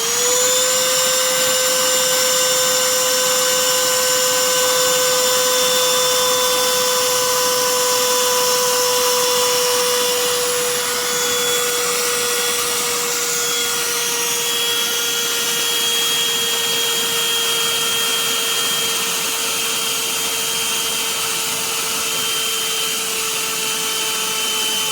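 A Black+Decker Dustbuster Pivot Vac cordless handheld vacuum running. Its motor whine rises as it spins up at the start, then holds steady and sinks slowly in pitch as the motor loses a little speed on its battery.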